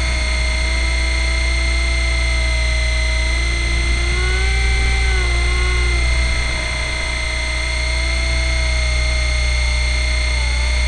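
Nine Eagles Kestrel 500 RC helicopter in flight, its motor whine and rotor noise picked up by the camera mounted on board: a steady high whine over a low hum. Around the middle the pitch rises and falls back as the motor speed changes, and the sound dips slightly just after.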